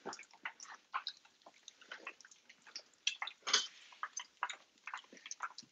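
Egg-coated torrija (bread soaked in milk) frying in hot oil in a pan: a steady, irregular crackling and popping.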